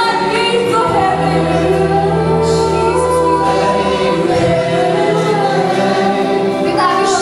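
Live worship band playing, with several voices singing together in long held notes.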